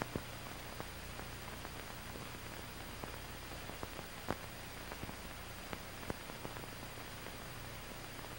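Soundtrack noise of an old film print: a steady hiss with a faint low hum, broken by scattered short clicks and pops, the loudest a little past four seconds in.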